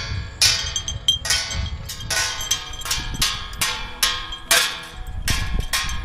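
Homemade wind-driven bird scarer: as the aluminium-tin fan spins, a small washer swinging from its hub strikes a round metal plate, giving repeated ringing metallic clangs, two or three a second and unevenly spaced.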